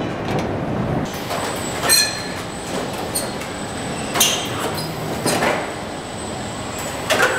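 Car body-shop assembly line with industrial robots at work: steady machinery noise with a thin high whine, broken by sharp metallic clanks with a brief ring about 2, 4, 5 and 7 seconds in.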